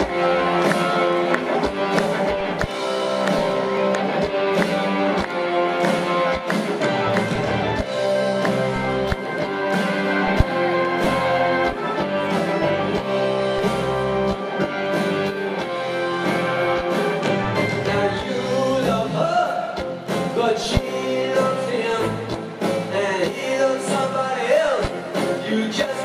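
Live rock band with electric guitars, drum kit and organ playing an up-tempo number over a PA, with a lead voice singing over it in the second half.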